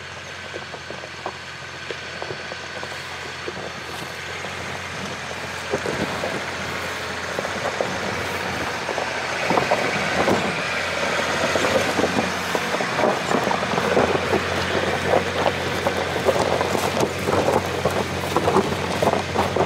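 Land Rover Discovery's 2.7-litre TDV6 diesel engine pulling steadily up a rocky dirt track, growing louder as it comes closer. From about six seconds in, the 16 mm snow chains on its rear wheels clink and crunch over the frozen ground and stones, more and more often.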